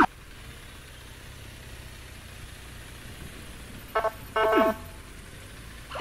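Steady low rumble of a running vehicle, with a horn sounding about four seconds in: two quick toots, then a longer one that sags in pitch as it ends.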